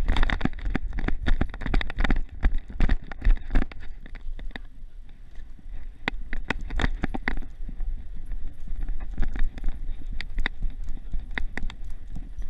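Rapid, irregular knocks and rattles of a dog-mounted camera jolting as the dog runs and turns, with its footfalls, over a steady low rumble on the microphone. The knocks come thickest at the start and again in bursts later on.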